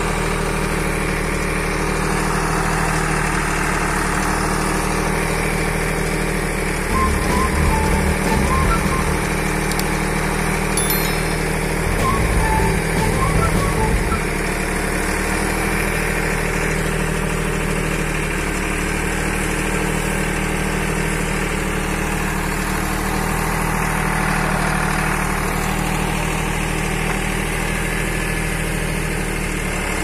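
Swaraj 960 FE tractor's diesel engine running steadily while driving a Bull backhoe attachment. It grows louder and rougher twice, for about two seconds each, roughly seven and twelve seconds in.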